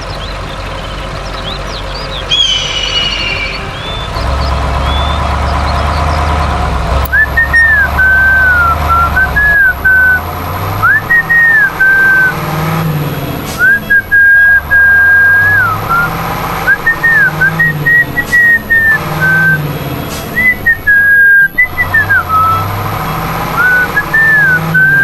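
Background music: a whistled tune with gliding notes over a stepping bass line, starting about seven seconds in after a few chirps over a low drone.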